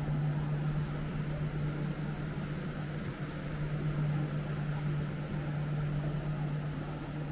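Steady low hum of building ventilation, one unchanging drone over a broad hiss of moving air.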